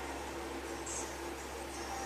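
Steady room noise: a low hum under an even hiss, with no speech.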